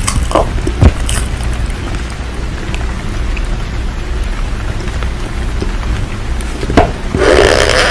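Steady rain, with a few short crunches about half a second and a second in, and a louder crunching sound starting near the end.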